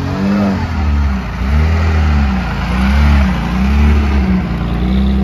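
A car engine revving, its pitch rising and falling again and again, roughly once a second.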